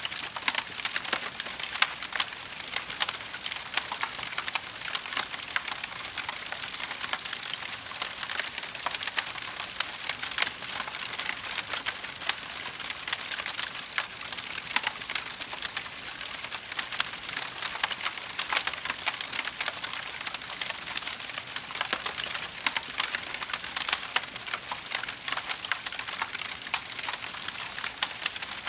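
Fire crackling: a dense, unbroken stream of small sharp snaps and pops over a soft hiss.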